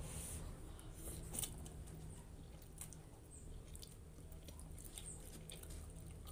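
A person eating instant cup noodles: faint chewing with small, irregular wet mouth clicks, over a low steady hum.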